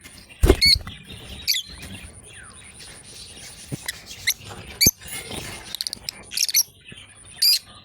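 Lovebirds giving short, sharp, high chirps and squeaks, roughly one every second, with a couple of brief knocks and a faint steady high whine.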